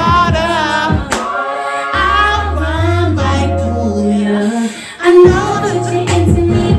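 R&B song playing: a woman sings a wavering, vibrato-laden melody over bass and drums. The beat drops out briefly just before five seconds in and comes back with a loud hit.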